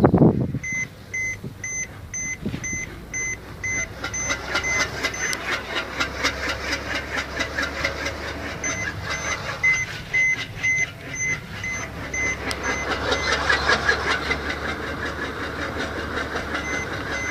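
Electronic beeping at two fixed pitches, about three beeps a second, in runs of a few seconds with pauses between, over a fast, steady rattling clatter.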